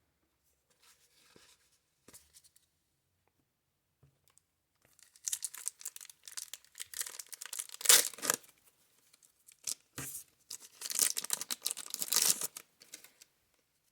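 A 1990 Score baseball card pack wrapper torn open and crinkled by hand, in two crackly bouts starting about five and about ten seconds in.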